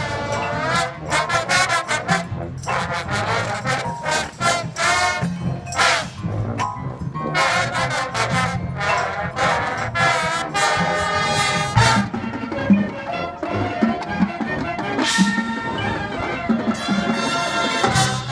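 High school marching band playing: short brass chords and stabs over a steady low drum pulse.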